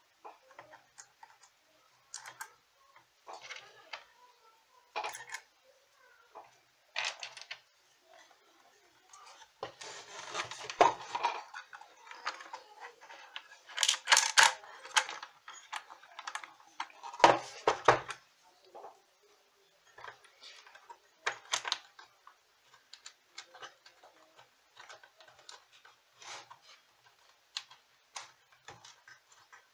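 Hands handling the metal chassis and potentiometer circuit board of a Meteoro Atomic Drive ADR-20 guitar amplifier during repair: scattered small clicks, taps and scrapes. There are a few louder bouts of clattering about a third of the way in and around the middle.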